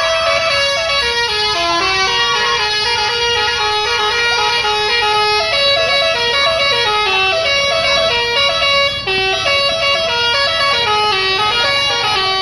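Bus basuri, a multi-tone musical air horn, playing a melody of short held notes that step up and down, several tones sounding together.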